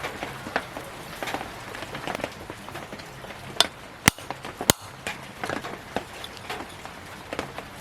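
Scattered light clicks and taps, with two sharp clicks about four and four-and-a-half seconds in, as of small metal pieces and tools being handled on a bench.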